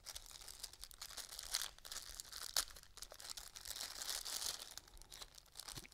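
Small clear plastic bag crinkling in the hands as a lavalier microphone is worked out of it: irregular crackles with a sharper snap or two.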